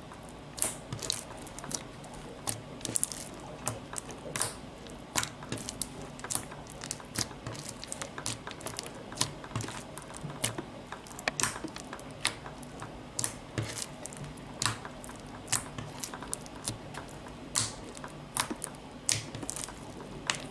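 Beaded slime being squeezed and pressed by hand, giving irregular crackling clicks and pops, several a second, over a steady low background hum.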